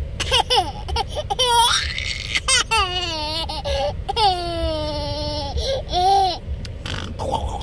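Toddler laughing hard, in bursts of high-pitched giggles and long drawn-out squeals.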